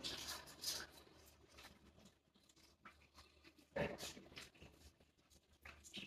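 Near silence in a small tiled room, with a few faint, brief sounds just after the start and about four seconds in.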